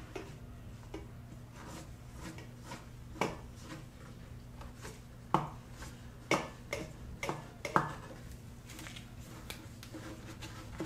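Broom handle wrapped in a lint-free cloth being run through the cam bearings of a small-block Ford engine block, giving scattered wooden knocks and light rubbing, with the sharpest knocks between about three and eight seconds in. This is the final wipe-down of the cam bearing bores before the camshaft is installed.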